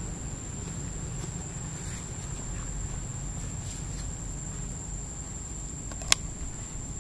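Outdoor ambience: a steady low rumble under a steady, thin high-pitched whine, with one sharp click about six seconds in.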